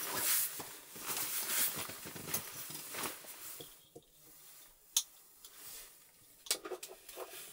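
Rustling and handling noise for the first few seconds, then a sharp click about five seconds in and several small clicks and taps near the end.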